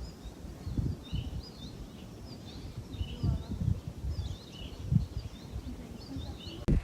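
Small birds chirping again and again, short high chirps scattered through, over irregular low thuds and rumbles.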